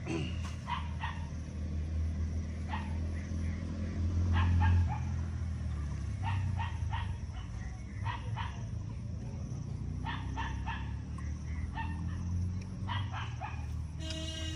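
A dog barking and yipping in short clusters of two to four calls every second or two, over a steady low hum.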